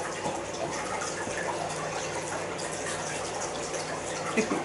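Steady background hiss with a faint low hum, and a few faint small clicks.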